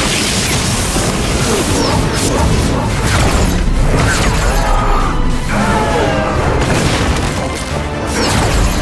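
Action-scene soundtrack: dramatic score music mixed with heavy booms and crashing impact effects.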